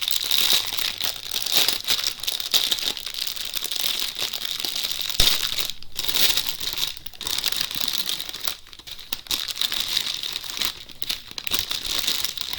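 Plastic packaging crinkling and rustling as it is handled and pulled open, with a sharp tap about five seconds in.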